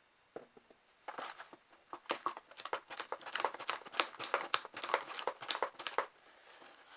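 A spoon stirring thickening PVA-glue slime in a bowl: a fast run of sticky clicks and crackles that starts about a second in and stops near the end.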